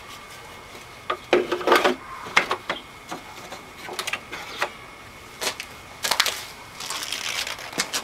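Irregular plastic clicks, knocks and rattles as the clear dust cup of a Bissell PowerForce upright vacuum is handled and fitted back onto the machine, with the motor off.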